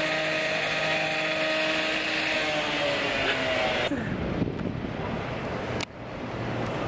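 A motor running with a steady drone, its pitch falling away about four seconds in, after which general street noise takes over, with a sharp click near the end.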